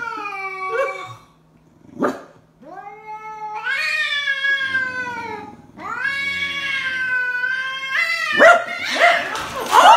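Calico cat yowling in hostility at a stuffed toy dog: three long, drawn-out wavering calls with short gaps, then harsher, noisier sounds near the end as it swats at the toy.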